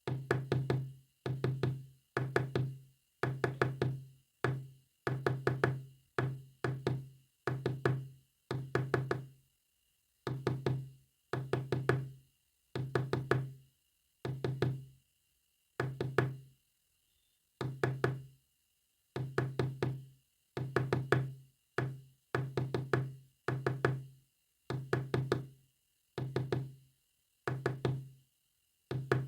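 Morse code played as a low, knocking buzz: short and long marks of rapid clicks, separated by pauses of varying length. A faint steady high whine runs underneath.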